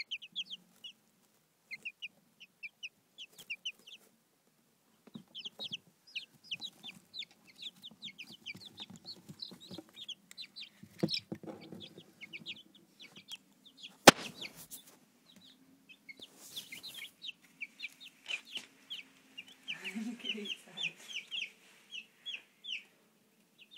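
Newly hatched chicks peeping: many short, high cheeps in rapid runs. A sharp click a little past halfway is the loudest sound, with some handling bumps.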